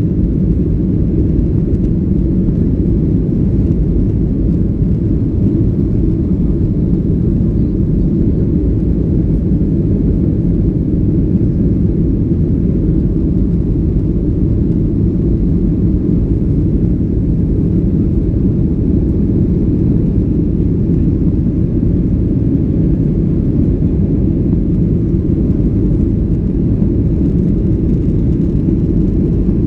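Boeing 737-800's CFM56-7B jet engines running, heard as a loud, steady low rumble with no change in pitch or level.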